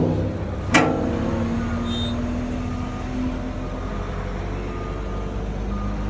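Wheel loader engine running steadily while its bucket is emptied into a trailer, with a sharp metal bang about a second in that rings on briefly.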